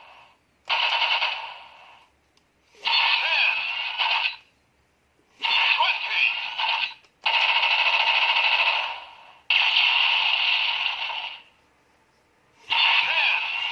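Bandai DX Hawk Gatling toy gun playing its electronic sound effects and voice calls through its small built-in speaker, in six separate bursts of one to two seconds each with short gaps between.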